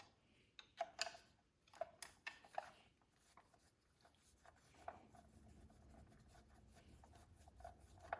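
Faint clicks and light scrapes of a screwdriver and small lock parts being handled while the lock's Phillips screws are taken out: several in the first three seconds and one more near five seconds, otherwise near silence.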